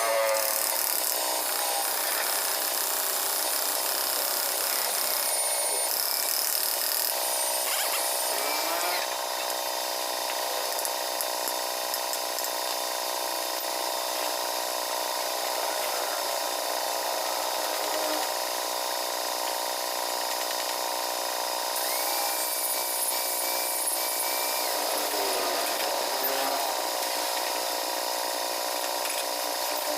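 A small motor or power tool running steadily with a constant whine.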